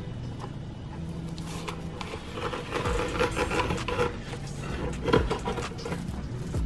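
Plastic cling wrap rustling and crinkling as it is stretched and pressed over two metal loaf pans of bread dough, busiest in the middle with a few sharp crackles.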